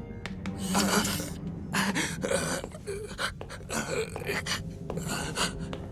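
A person gasping and panting in fright, several ragged breaths one after another, over a low steady hum.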